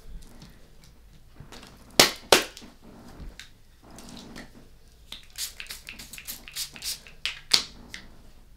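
A deck of cards being handled and shuffled on a table: two sharp taps about two seconds in, then a quick run of card flicks and slaps over the last few seconds.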